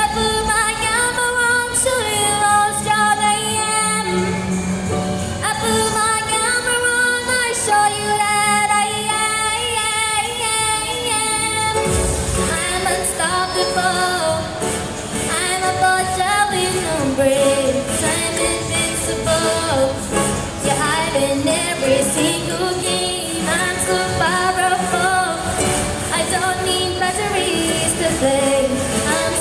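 A female singer singing a song live over backing music, with held, wavering sung notes.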